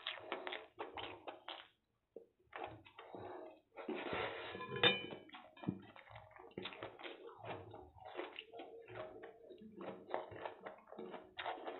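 Close-miked hand-eating sounds: fingers scraping and picking noodles off a stainless steel plate, with mouth and chewing noises, as a string of small clicks and scrapes. About five seconds in, a sharp metallic clink with a short ring from the steel plate is the loudest sound.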